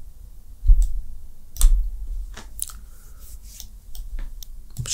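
Computer mouse clicks while working on screen: about half a dozen sharp clicks spread out, the two loudest, about two-thirds of a second and a second and a half in, with a dull knock on the desk.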